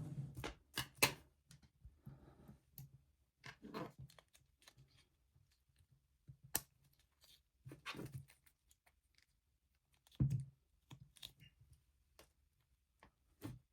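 Scattered light clicks and rustles of hands handling small drone parts and wiring.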